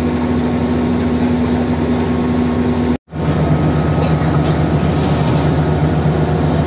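Heavy diesel engine of a hydraulic static pile driver running at a steady speed. About halfway through, the sound drops out for an instant, and the engine drone picks up again at a lower, steady pitch.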